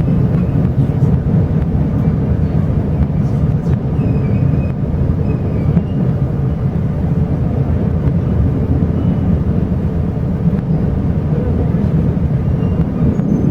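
Steady low rumble of a Chu-Kuang express passenger carriage running along the line, heard from inside the carriage.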